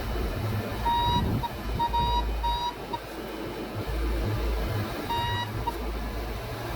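Short electronic warning beeps, a few in quick succession about a second in and again around five seconds, over a steady low engine-like rumble.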